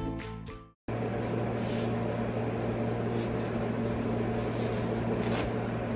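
A few notes of background music fade out in the first second, then after a short gap a steady electric hum with a low drone continues.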